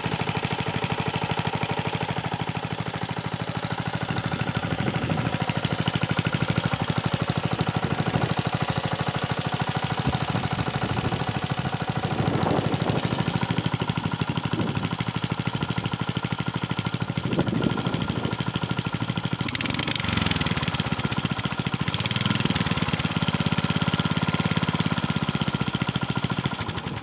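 Honda HR215 lawnmower's single-cylinder four-stroke petrol engine running steadily under load while cutting grass, with two short bursts of rushing noise about two-thirds of the way through.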